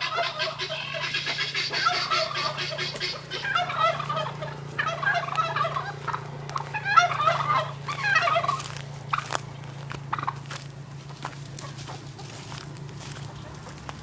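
Domestic poultry calling: a string of rapid, warbling calls about a second long each, several in a row over the first nine seconds, then dying away to scattered faint clicks. A steady low hum runs underneath.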